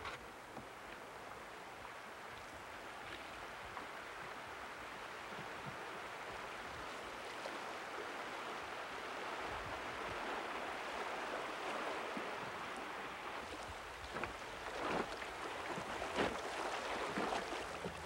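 Dunajec River water rushing and rippling over shallows past rocks. It grows louder midway, with a few short splashes in the last few seconds.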